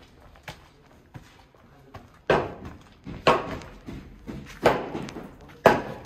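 Footsteps on concrete, close to the microphone: sharp steps about once a second, growing louder from about two seconds in.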